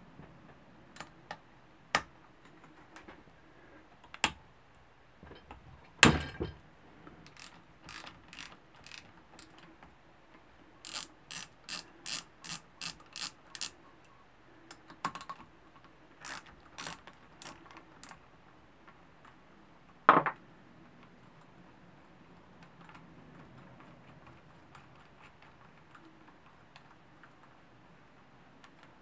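A hand wrench clicking and clinking on the acorn nuts of a Piranha 140cc engine's tappet cover. In the middle comes a run of quick, evenly spaced ratchet-like clicks, about three a second, and there are two louder metal clanks, about six and twenty seconds in.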